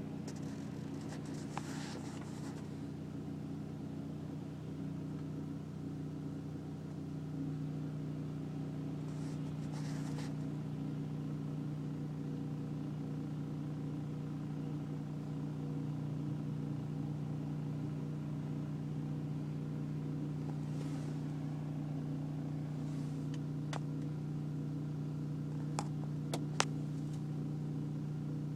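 BMW E46 325i's 2.5-litre inline-six idling with a steady, even droning hum, the idle noise that vibrates through the car when stopped. A few faint clicks, two of them close together near the end.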